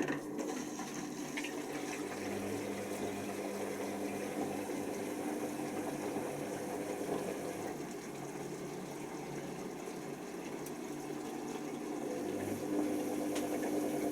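Hoover Nextra washer dryer with water running through it during its wash cycle, over a steady hum.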